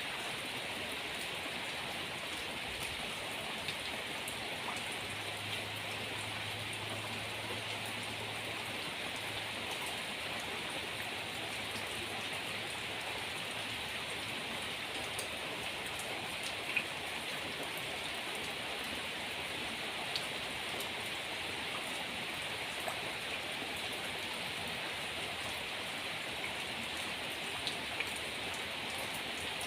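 Steady rain falling, an even hiss of downpour with a few sharp drip ticks scattered through it.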